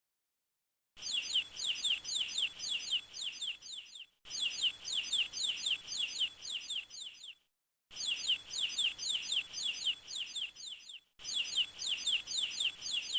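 Chick peeping: rapid, high, falling chirps, about four a second, in four bouts of about three seconds each with short pauses between.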